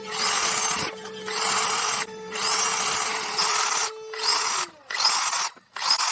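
A tool working wood in repeated rasping strokes, about five, each lasting roughly a second with short breaks between. A faint steady tone runs underneath.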